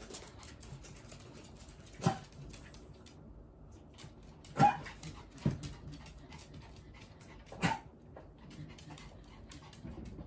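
Dog barking: four short single barks a few seconds apart, the two in the middle loudest.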